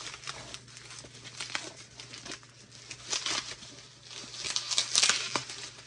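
Bubble wrap crinkling and crackling as it is pulled off a package by hand, in irregular bursts that are loudest near the end.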